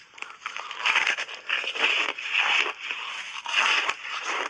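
Refrozen, reshaped ice being bitten and chewed: a quick run of loud, crackly crunches from about a second in, as the hard ice breaks up between the teeth.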